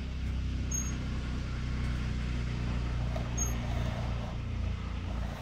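A motor running steadily nearby, giving a low, even hum, with two faint high squeaks about a second and three and a half seconds in.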